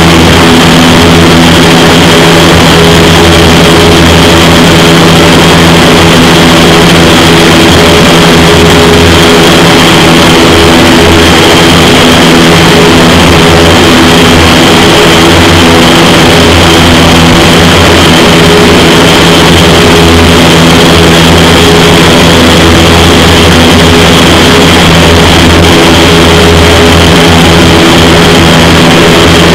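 Indoor vertical wind tunnel running at flying speed: a loud, steady rush of air from the tunnel's fans, with a steady hum of fan tones under it.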